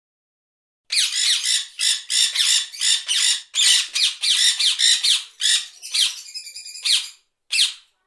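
Parrot squawking: a rapid run of raspy calls starting about a second in, thinning to two separate calls near the end.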